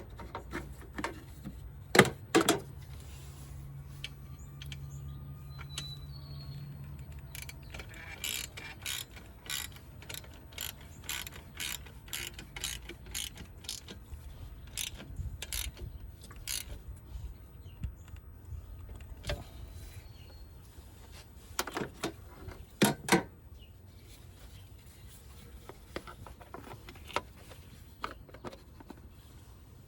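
Hand tools clicking and clanking on metal in a series of irregular sharp clicks, loudest about two seconds in and again past the two-thirds mark, over a steady low hum.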